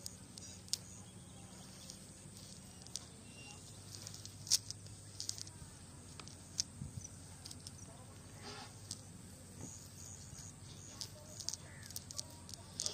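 Scattered faint clicks and rustles of a cast net being handled and picked through by hand, with one sharper click about four and a half seconds in.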